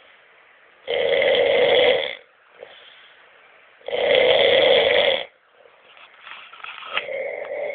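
A sleeping man snoring loudly: two long snores about three seconds apart, each lasting over a second, with quiet breathing between.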